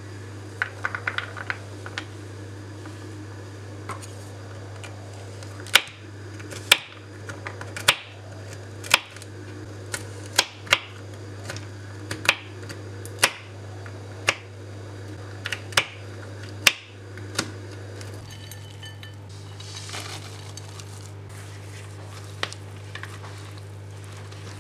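Kitchen knife chopping walnuts on a bamboo cutting board: sharp knocks of the blade on the wood, irregular at about one a second, sometimes two close together. They stop about two-thirds of the way through, leaving a brief soft rustle over a steady low hum.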